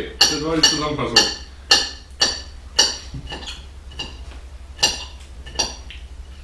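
Spoons clinking against bowls during a meal: a string of sharp, irregular clinks, several in the first three seconds, then two more near the end.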